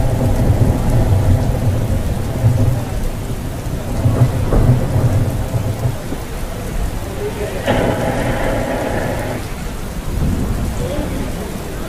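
Thunderstorm sound effect for a stage play: rolling thunder rumbling over steady rain, with a louder, higher-pitched surge about eight seconds in.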